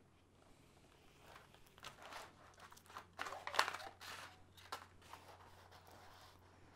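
Crinkling and rustling of a diamond painting canvas and its glossy plastic cover film as hands flatten and smooth it, in irregular crackles that are loudest about halfway through.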